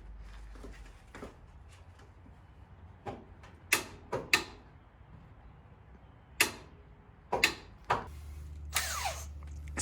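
Irregular sharp clicks and knocks of hand tools and metal parts being handled during suspension work, about one every second or so, with a steady low hum coming in near the end.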